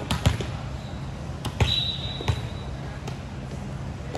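A volleyball bouncing on a gym floor: several irregular thuds echoing in a large hall. A short, steady, high whistle sounds about halfway through.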